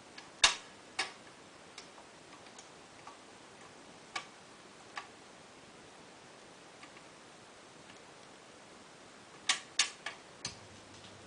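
Scattered sharp clicks and pops over a faint hiss, with no music yet. A loud pair of clicks comes near the end, and a low hum starts just after.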